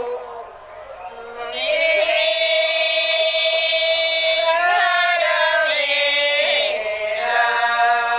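Women's voices chanting a prayer together in drawn-out, held notes that change pitch slowly, with a short lull in the first second or so.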